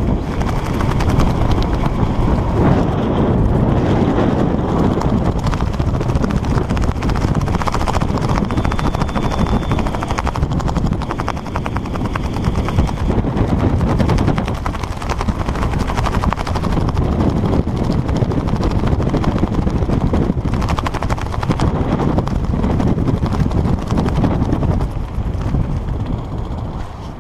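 Wind buffeting the skydiver's camera microphone during parachute canopy flight: a loud, choppy rush of air that eases off near the end as the canopy slows for landing.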